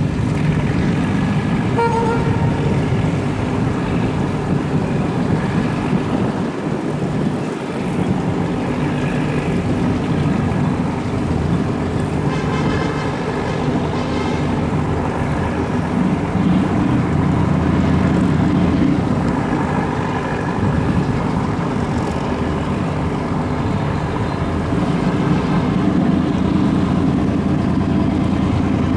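Engines of the Superdong X high-speed passenger ferry running steadily as it comes in to dock, a low drone that grows a little louder in the second half.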